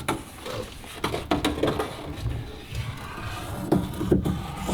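Several short knocks and clunks of handling in a small room, the loudest two close together near the end.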